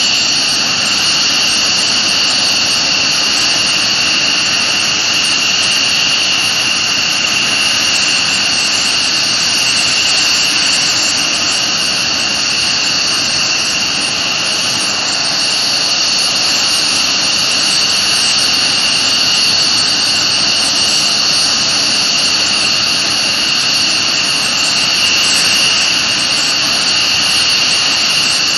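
F-15C Eagle fighters' twin turbofan engines running steadily on the ground: a constant jet noise with a high whine held at two steady pitches.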